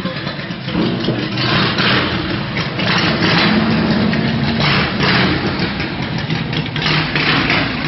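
Freshly rebuilt vehicle engine running on its first outing after a teardown, a steady hum with several swells of louder, rougher exhaust noise.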